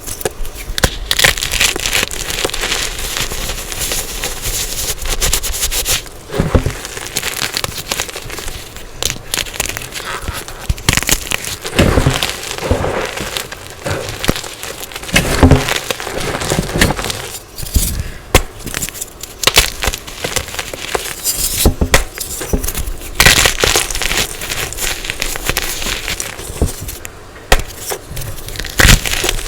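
Blocks of dyed gym chalk being crushed and crumbled close to the microphone: dense, irregular crunching and crackling with sharp snaps throughout.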